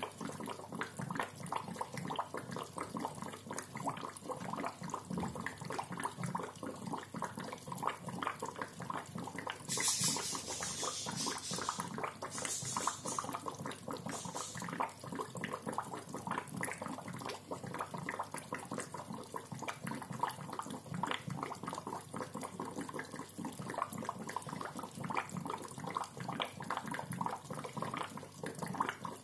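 Aquarium bubbler in a fish tank, a steady rapid gurgle of many small bubbles popping at the water surface. A few brief hissing spurts break in about ten to fifteen seconds in.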